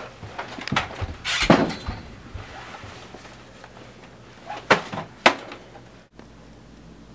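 A few knocks and bumps: a cluster about a second in, then two sharp clicks about half a second apart near the five-second mark.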